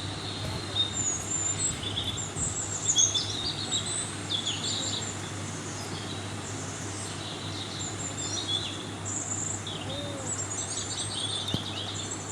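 Several birds chirping and singing, with many short high calls and trills overlapping, over a steady low hum.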